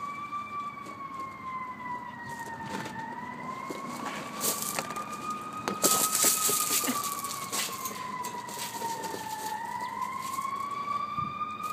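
Siren wailing, its pitch rising and falling slowly over several seconds at a time without a break. Short crunching noises on gravel cluster near the middle and are the loudest moment.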